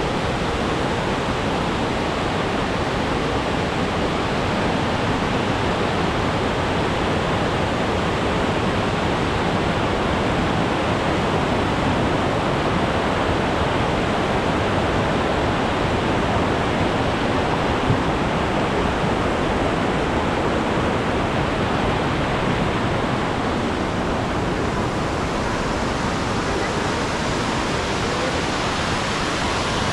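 Mountain river rushing over rocks and a small concrete weir, a steady, unbroken rush of white water.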